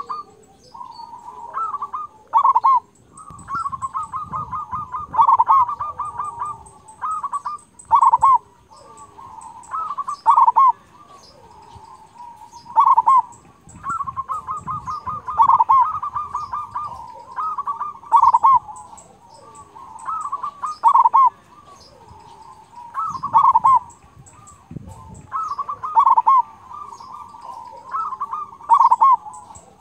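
Zebra dove (perkutut) singing: repeated cooing phrases, each a quick run of short notes ending in louder 'kung' notes, about every two and a half seconds.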